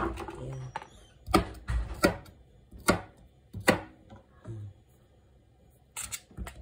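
A kitchen knife chopping bamboo shoots on a cutting board: sharp, single cuts about every second, then a pause and two more cuts near the end.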